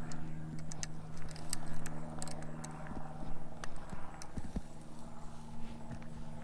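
Irregular crunching steps and rustling clicks, like someone walking through brush on the bank, over a steady low machine hum.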